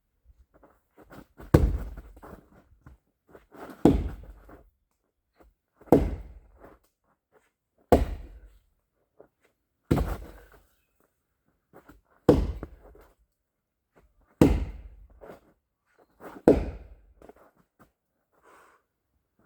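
Axe chopping into a rotten tree trunk: eight heavy thunking blows, about one every two seconds, with small knocks and rustles between strokes.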